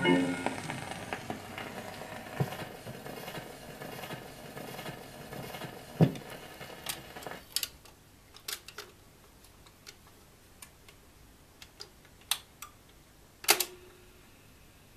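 The last of a 1920s shellac 78 rpm record fades into the record player's surface hiss and crackle. About halfway through, the hiss drops away, leaving scattered sharp mechanical clicks, the loudest near the end.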